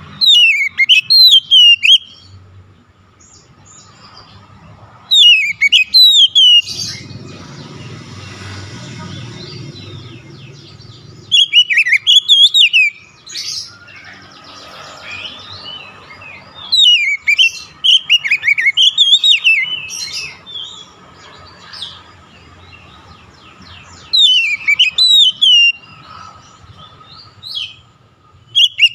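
Male Oriental magpie-robin (kacer) singing: loud bursts of rapid, sweeping whistled phrases, each a second or two long, several seconds apart.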